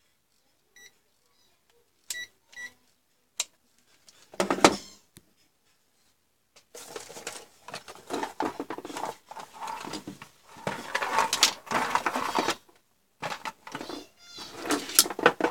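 Three short, high beeps from a ZT101 digital multimeter's buzzer as its controls are worked, followed by long stretches of rustling and handling noise as the meter, its cloth pouch and its cardboard box are moved about on the bench. The rustling is the loudest sound.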